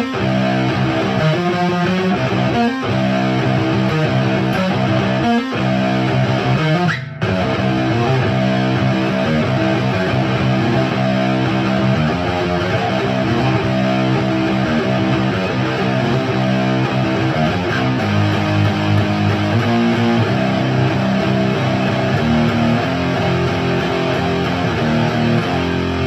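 Electric guitar with a Bare Knuckle Mississippi Queen P90 pickup, played through a Diezel Hagen tube head with JJ KT77 power tubes into a Marshall Mode Four cabinet with Celestion G12-K100 speakers: continuous chords and riffs, with a brief break about seven seconds in.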